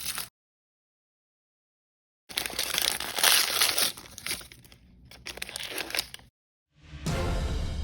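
Plastic blind-bag packaging crinkled and torn open in bursts, with sudden gaps of dead silence between them. Near the end a whooshing musical sound effect swells in.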